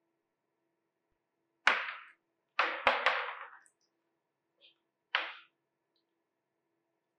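A brittle mask of dried red pieces being torn apart by hand: sharp cracking rips, once about two seconds in, twice in quick succession near three seconds, and once more about five seconds in. Each rip fades within a fraction of a second.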